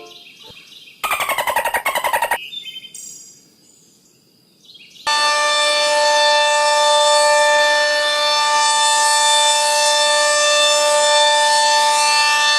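Tornado siren (outdoor warning siren) sounding a loud, steady, unwavering tone that cuts in suddenly about five seconds in, after a short buzzy falling sound and a quieter fading glide.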